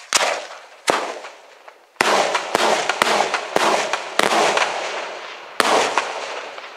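Daytime fireworks shells bursting overhead in a series of sharp, echoing bangs. There is a pair right at the start, one about a second in, a quick run of five from two seconds on, and a last bang near the end, each trailing off in a rolling rumble.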